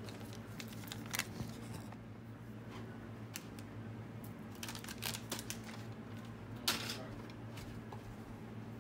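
Light rustling and handling noises close to the microphone as someone moves about right beside it. There are scattered clicks and scrapes, with sharper ones about a second in and near seven seconds, over a steady low hum.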